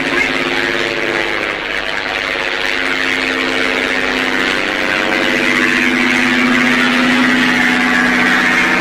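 Steady engine drone with several pitched tones that drift slowly, gradually growing louder, as of an approaching motor.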